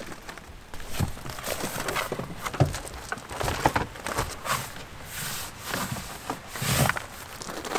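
Irregular knocks, taps and rustling of things being handled and moved about, with a few sharper clacks spread through.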